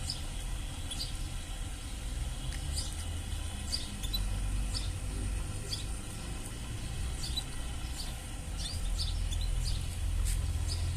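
Canaries giving short, high chirping call notes, roughly one a second, over a low rumble.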